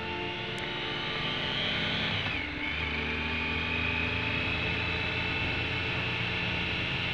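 Triumph Tiger Sport's 1050 cc three-cylinder engine pulling under acceleration, its pitch rising. About two and a half seconds in it drops sharply with a short dip in level at a gear change, then climbs steadily again.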